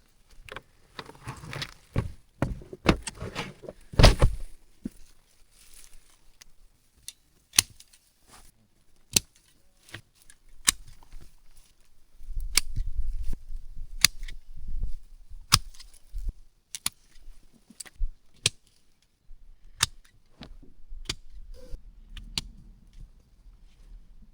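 Tomato plants being handled and pulled out: leaves and vines rustling, then a long series of scattered sharp clicks and snaps.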